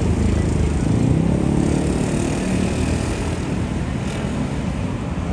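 Street traffic: a motor vehicle's engine passes, swelling about a second or two in and fading, over a steady low rumble.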